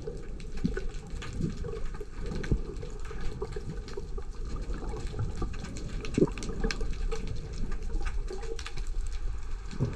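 Underwater ambience heard through a camera's waterproof housing: a steady, muffled low water rush with scattered faint clicks and crackles.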